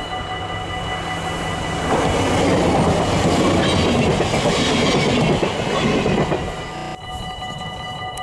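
NS ICM "Koploper" electric intercity train passing at speed: the rush and clatter of its wheels on the rails swell about two seconds in, stay loud for about three seconds as the coaches go by, then fade and cut off abruptly about seven seconds in.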